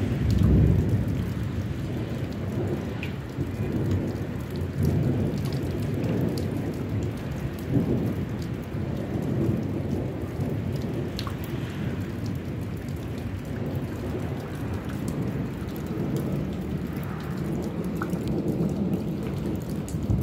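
Thunderstorm: thunder rolls in long low rumbles that swell and fade, loudest about half a second in, over steady rain with scattered drops ticking.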